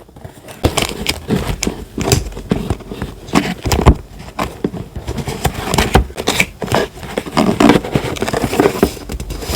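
Close-up paper handling for journaling: crinkling, rustling and scraping of paper and stickers, with many irregular small taps and clicks.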